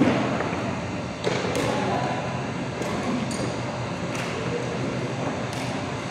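Badminton rackets striking a shuttlecock during a rally: a series of sharp clicks about once a second, the first the loudest, over the steady noise of a large hall.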